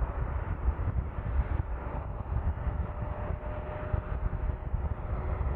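Twin-engine wide-body jetliner at takeoff power, its jet engines giving a steady, deep rumbling roar through the climb-out just after lift-off.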